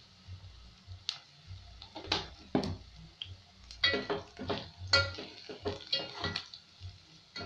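Wooden spoon stirring sliced onions in a metal pot, knocking and scraping against the pot's side: a string of sharp clicks and clatters, several with a brief metallic ring, coming thickest in the second half.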